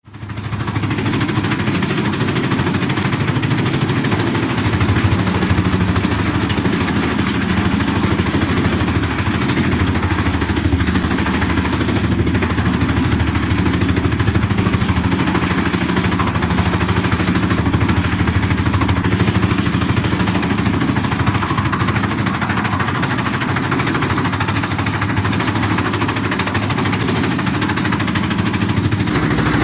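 Teknamotor Skorpion 650 EB stationary drum wood chipper running with a steady, even hum.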